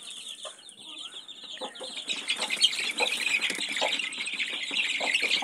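A brood of newly hatched criollo chicks peeping rapidly and continuously, growing louder about two seconds in as a hand reaches in to catch them, with a few light knocks of handling on the wire cage.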